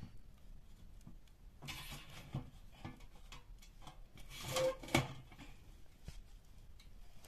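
A large lidded aluminium pot scraping and clanking as it is pushed across a brick hearth into a wood-fired oven. The loudest clatter comes about four and a half to five seconds in, with a brief metallic ring. Light crackles from the burning wood fall in between.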